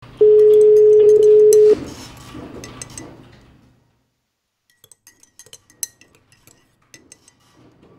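A loud steady tone for about a second and a half that cuts off suddenly, then a metal teaspoon clinking lightly against a small ceramic espresso cup as it stirs the coffee.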